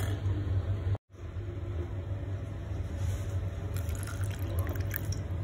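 Water poured in a thin stream into a ceramic mug over a spoonful of cornflour, a steady trickle that follows a brief drop-out of all sound about a second in.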